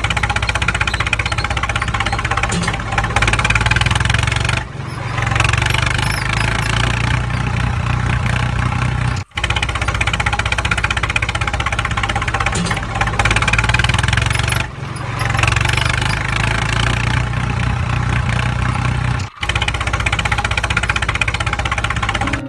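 Engine sound of a tractor starting and running, played as a loop that repeats about every ten seconds, with a brief dropout at each restart.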